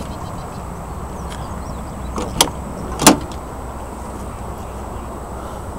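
Two sharp clicks, a little under a second apart, as the side entry door of a 1978 GMC motorhome is unlatched and pulled open, over a steady low background rumble.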